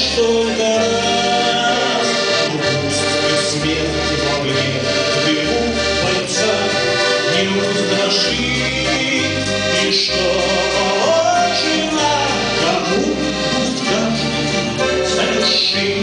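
A man singing a waltz to his own accordion accompaniment: the accordion plays sustained chords over a steady repeating bass line in waltz time, with his voice carrying the melody.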